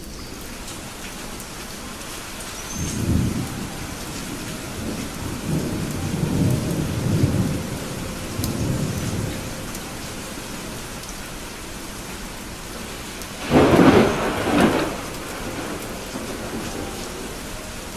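Steady rain with thunder: a low rumble about three seconds in, a longer rolling rumble a few seconds later, and the loudest, sharper thunderclap about three-quarters of the way through.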